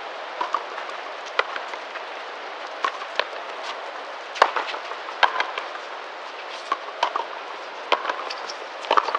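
Frontenis rally: a hard rubber ball struck by stringed rackets and smacking off the front wall and floor, about a dozen sharp knocks at irregular intervals, the loudest about four and a half seconds in, over a steady background hiss.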